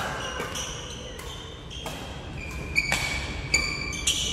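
Badminton rally: athletic shoes squeaking on the wooden court floor in many short, high squeals, with two sharp racket hits on the shuttlecock about three seconds in.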